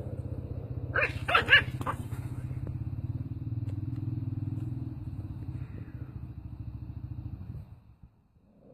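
A dog barks sharply four or five times about a second in, over a steady low, fast-pulsing rumble that stops suddenly near the end.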